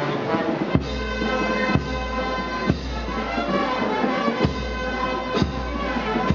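Live procession band playing a slow march: wind instruments hold sustained notes over deep bass-drum beats about once a second.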